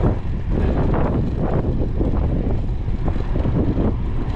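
Wind buffeting the microphone of a camera on a moving bicycle: a loud, steady low rumble that rises and falls in irregular gusts.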